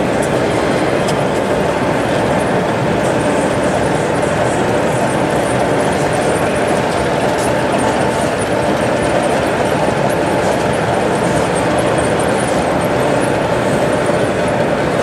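DCC sound-fitted O gauge model of a Class 25 diesel locomotive running, its engine sound playing steadily from the onboard speaker as the model train of wagons rolls past on the track.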